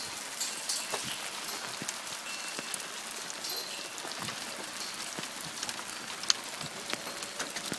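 Hailstones falling and striking the ground and plants all around: a steady hiss of many small ticks, with one louder tick about six seconds in.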